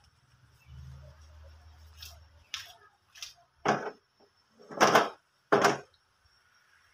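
A spatula scraping and stirring squid rings in adobo sauce in a nonstick wok: about six short scrapes in the second half, the last three longer and louder.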